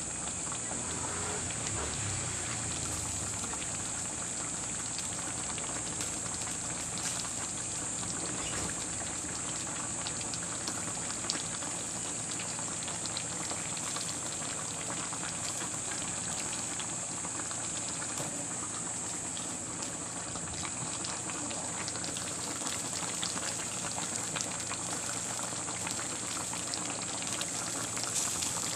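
Ginataang tulingan, bullet tuna and long green chilies in coconut milk, bubbling steadily in a metal pot, with many small pops and a steady high hiss.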